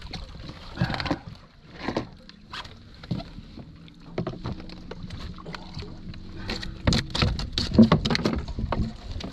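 A hooked fish splashing at the surface beside a boat's stern while it is landed by hand, with scattered knocks and thumps against the hull, busiest and loudest about seven to eight seconds in. A faint steady hum runs underneath through the middle.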